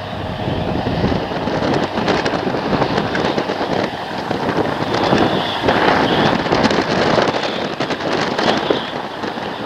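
John Deere combine harvester running steadily as it cuts wheat, its engine and threshing machinery making a dense, continuous noise, with wind buffeting the microphone.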